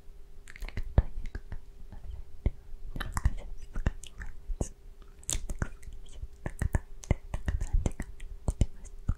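Close-miked inaudible ASMR whispering, with no clear words, broken by many sharp wet mouth clicks.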